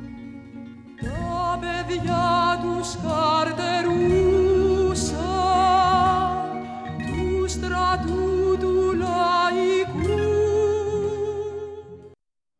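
A song: a solo voice sings long held notes with vibrato over instrumental accompaniment with a bass line. The music cuts off abruptly near the end.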